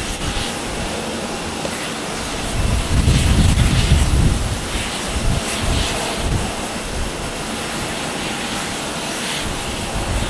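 Boeing 777-200ER airliner on final approach, its twin GE90 turbofans giving a steady jet rush and whine at low landing thrust. A louder low rumble swells for about a second and a half around three seconds in.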